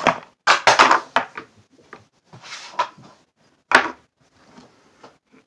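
Handling knocks and clicks of a tin can of Grizzly dipping tobacco close to the microphone: a quick cluster of sharp knocks about a second in, then a single sharp click near four seconds.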